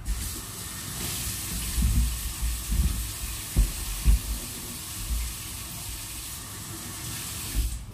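Kitchen tap running into a stainless steel sink while something is rinsed, with a few light knocks against the sink; the water shuts off just before the end.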